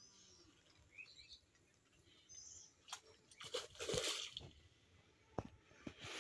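Faint bird chirps over quiet pond-side background, with a brief splash at the pond surface about four seconds in.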